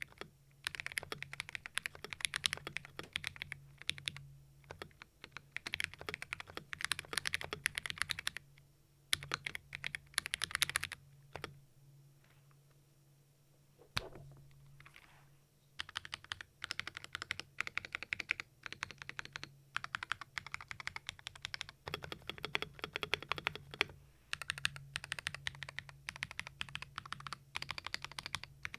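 Fast typing on a Keydous NJ68 Max mechanical keyboard with Akko CS Ocean Blue switches in a brass plate: rapid runs of crisp, clacky keystrokes with a pause of a few seconds midway. The bright, clacky sound comes from the switches and brass plate, with the case taped and filled to cut hollowness.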